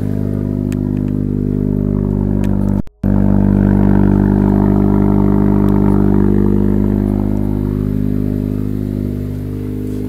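2021 Honda Civic Hatchback Sport's 1.5-litre turbocharged four-cylinder engine idling steadily. It cuts out briefly about three seconds in, then comes back louder from near the exhaust.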